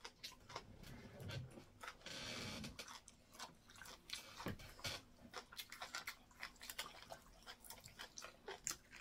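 Faint close-up chewing of soft semolina fufu and egusi soup, with many small wet mouth clicks and lip smacks, and a short breathy hiss about two seconds in.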